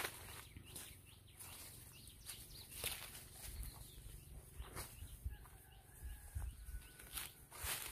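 Quiet footsteps crunching on dry leaf litter and brushing past vegetation on a forest path, an irregular patter of soft steps and rustles, with a faint distant high call partway through.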